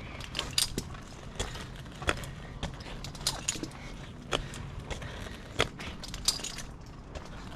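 Irregular sharp clicks and knocks with light metallic jangling: a tree climber's gear moving as he works in the tree, over a faint steady low hum.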